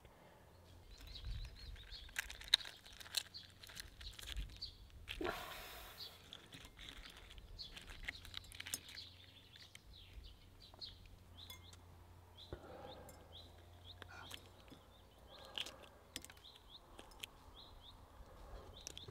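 Faint crackle and crunch of duck eggshell being broken and picked off by hand, in scattered small clicks, with small birds chirping in the background.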